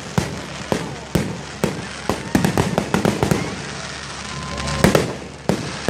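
Fireworks display: aerial shells bursting with sharp bangs at irregular intervals, with a quick run of crackling pops about two and a half to three and a half seconds in and a louder bang near the five-second mark.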